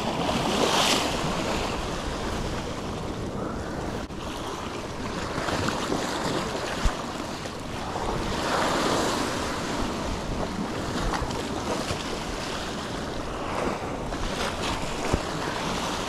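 Sea surf washing and breaking over the rocks at the water's edge. It surges louder about a second in and again about halfway through, with a couple of brief sharp knocks.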